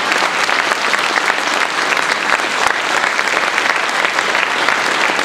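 Audience applause: many hands clapping together in a dense, steady patter.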